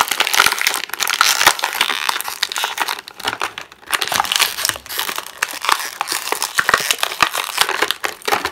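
Thin clear plastic blister packaging crinkling and crackling as hands pull a small doll out of it and crumple the plastic, a dense run of crackles that eases briefly about three seconds in.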